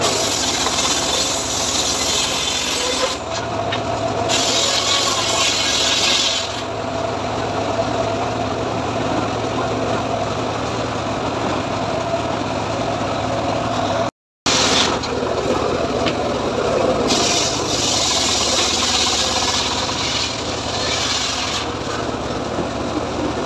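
Engine-driven homemade circular-saw sawmill ripping a teak log lengthwise. The blade hisses through the wood in several long cuts over the steady drone of the engine, and the sound drops out briefly about halfway.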